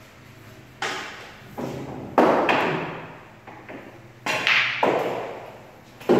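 Pool balls clacking and knocking in a game of pool, a series of sharp hits each followed by a ringing echo in the bare room, with a cluster of them about four and a half seconds in as a shot is played.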